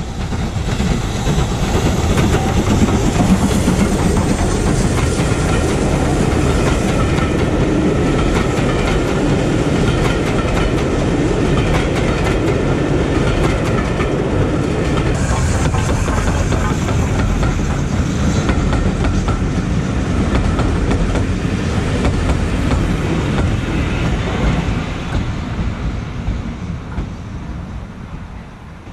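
Steam locomotive and its train of coaches passing close by on the line. It is loud for most of the time and fades over the last few seconds as the train draws away.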